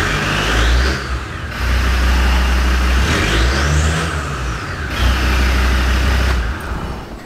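Land Rover Defender Td5's five-cylinder turbodiesel engine running just above idle and revved up and down a few times, a whine rising and falling with each rev. The sound drops away near the end.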